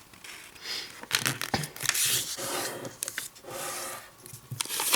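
A sheet of origami paper being handled, folded and creased by hand: irregular rustling and rubbing with a few sharp crackles as the folds are pressed flat.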